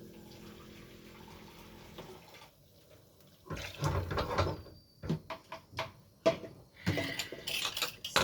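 Water being poured and splashing into a cooking pot in short pours, about three and a half seconds in and again near the end, with a few sharp utensil clicks in between.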